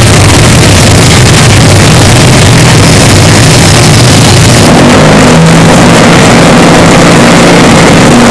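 Construction machinery noise, deliberately blown out: a loud, heavily distorted, steady engine drone. Its tone shifts just under five seconds in.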